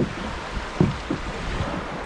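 Shallow river water rushing over rocks and past a canoe's hull, with a few short low thumps about a second in.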